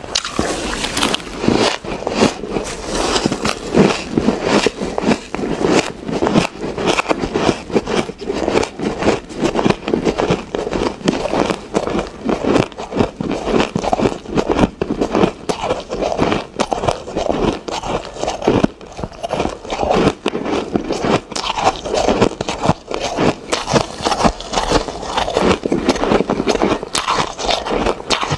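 Mouth chewing crushed and shaved ice: a dense, unbroken run of crunches and crackles.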